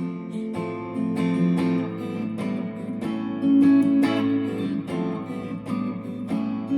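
Instrumental passage of a song with no singing: a guitar strummed in a steady rhythm, chords struck about twice a second.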